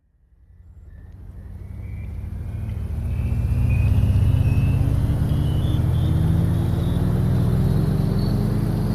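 Revox B77 reel-to-reel tape recorder winding tape at high speed: a low whirring rumble that builds up over the first few seconds, with a faint whine that slowly rises in pitch.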